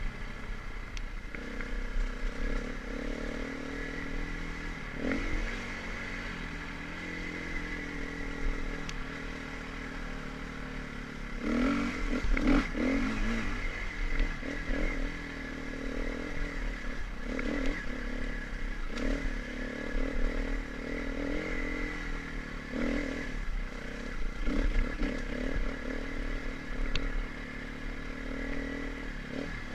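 Dirt bike engine running on a rough trail, its revs rising and falling with the throttle. The loudest bursts of revving come about twelve seconds in and again about twenty-four seconds in.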